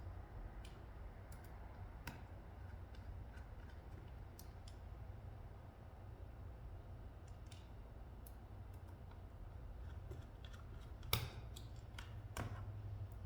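Small screwdriver driving tiny screws into a laptop hard drive's case: scattered faint metallic clicks, with two louder clicks near the end.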